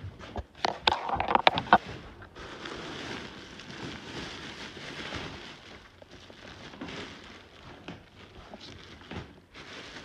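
Household junk and trash being handled: a quick run of clattering knocks, then steady rustling and scraping.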